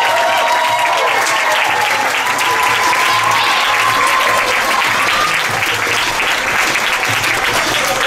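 Theatre audience applauding steadily as the cast bows and leaves the stage.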